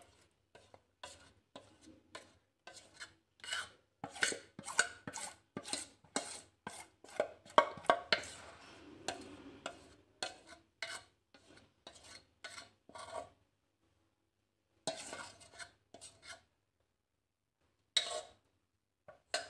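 Cake batter being scraped out of a stainless steel mixing bowl: a run of short scrapes and taps of a utensil against the metal, several a second, which stops for a moment about two thirds of the way in and returns in a few brief strokes near the end.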